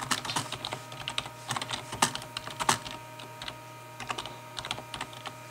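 Typing on a computer keyboard: irregular runs of key clicks, with a pause of about a second just after the middle.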